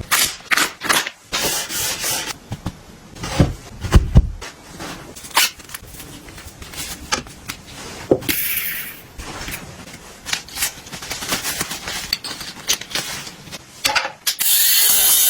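Hands handling household objects: a run of clicks, knocks and rubbing. There is a short hiss about eight seconds in, and a louder steady rushing sound starts about a second before the end.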